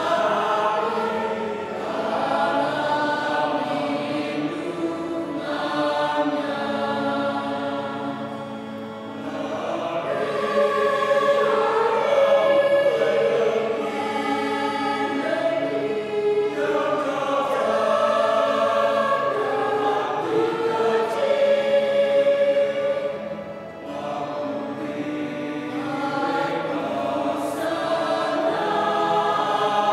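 Mixed choir of men and women singing a Catholic hymn in two voice parts, in long sustained phrases with two brief breaks between phrases.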